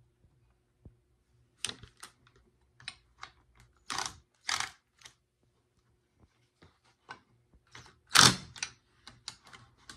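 Short bursts of a Ryobi cordless impact driver turning the screw of a crankcase splitter to part the case halves of a Stihl 064 chainsaw engine. Two bursts come about four seconds in and a louder one about eight seconds in, with scattered light metal clicks between them.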